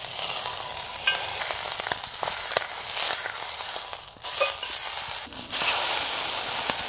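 Beef steak sizzling as it sears in fat in a hot cast iron pan, with a few short clinks of a fork and spoon turning it. The sizzle grows louder about five and a half seconds in, as the meat is flipped onto its other side.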